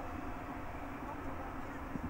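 Steady distant engine rumble with a faint steady hum underneath.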